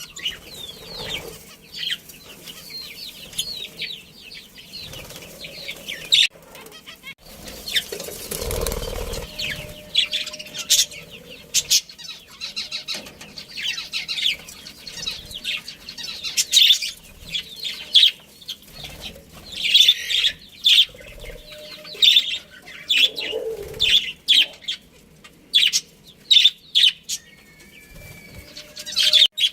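A colony of budgies chirping and chattering in quick, high, short calls, with wings flapping; a louder rush of flapping about eight to nine seconds in.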